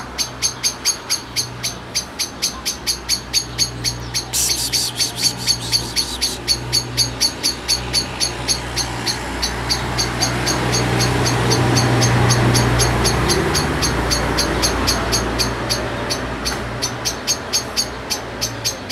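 Steady, evenly repeated high chirping, about four chirps a second, from an unseen small animal. Underneath it there is a low hum, and a duller rumble swells and fades in the middle.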